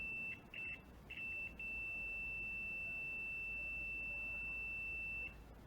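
UNI-T UT136C multimeter's continuity buzzer giving a steady high-pitched beep, signalling a closed circuit between the probes. It breaks off and resumes a few times in the first second and a half, then holds for about four seconds and stops.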